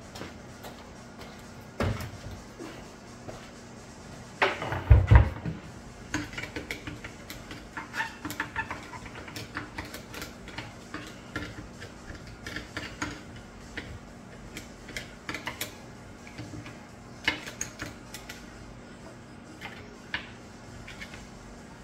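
Screwdriver working on the screws of a Bosch 1276D belt sander's housing: small irregular clicks, scrapes and rattles of tool on the casing. A sharp knock comes about two seconds in, and a heavy thump about five seconds in is the loudest sound.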